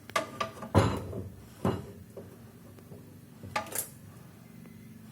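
Pan being shaken on a stove burner, the metal knocking and clattering several times with pauses between.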